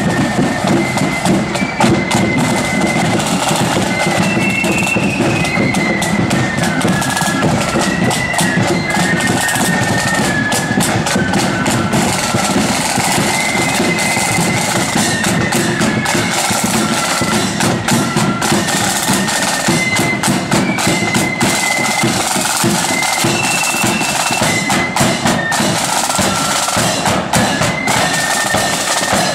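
Marching band playing: a high wind-instrument melody over snare drums, a bass drum and cymbals, kept up steadily.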